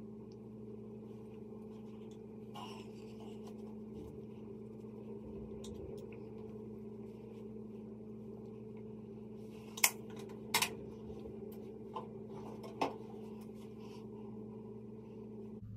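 Small clicks and clinks as makeup items such as powder and brushes are handled, with two sharper clicks about ten seconds in, over a steady low hum in the room.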